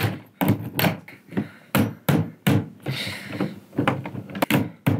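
Claw hammer knocking at the lid seam of a wooden shipping crate bound with metal strips: about ten sharp knocks at uneven intervals, with a short scraping sound about three seconds in as the lid is worked loose.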